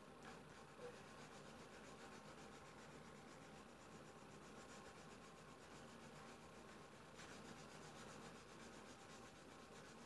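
Faint rubbing of a drawing stick stroked across paper, very quiet, a little louder near the end.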